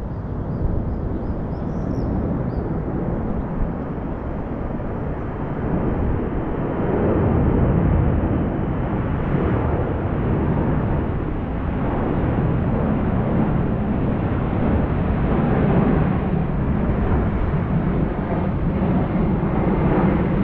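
A steady, loud low rumble of outdoor noise with no distinct events, swelling a little about seven seconds in.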